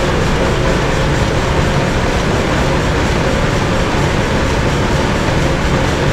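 1924 Mirrlees five-cylinder diesel pumping engine running steadily, a loud continuous mechanical beat with a faint steady whine above it.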